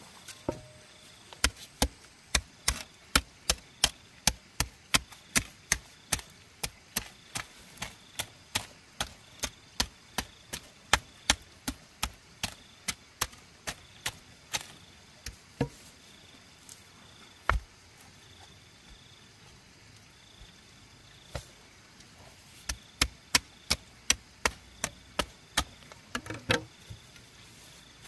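A hand hoe chopping into packed clay soil in a steady rhythm of about two strokes a second. It breaks off for several seconds in the middle, with only a stroke or two, then resumes.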